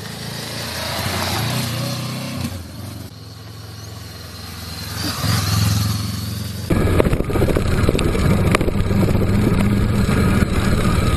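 Motorcycle engine running and revving while being ridden, its pitch rising twice. About two-thirds of the way through the sound switches abruptly to a louder, rougher engine note with scattered knocks.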